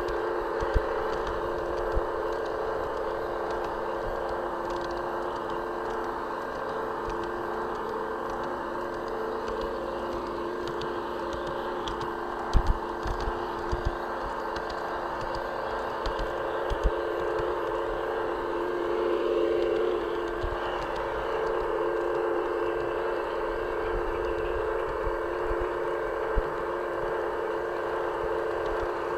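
G-scale garden railway train running, heard from a camera riding on the train: a steady whine of the electric motor and gearing, getting briefly louder about two-thirds of the way through. Occasional sharp clicks from the wheels over the track, and a low rumble of wind on the microphone.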